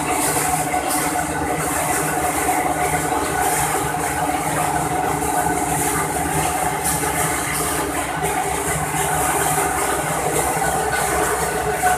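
SFML-720A roll laminating machine running, its rollers drawing printed paper and film through: a steady mechanical hum with a few constant tones over a hiss.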